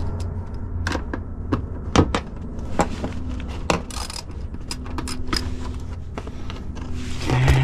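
Irregular metal clicks and clinks of a socket ratchet and loose bolts being worked by hand, a few every second, over a steady low hum.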